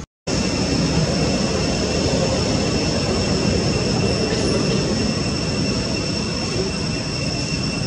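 Steady outdoor drone of cicadas, two high steady tones held without a break, over a low rumbling background noise; it cuts in after a brief silence at the very start.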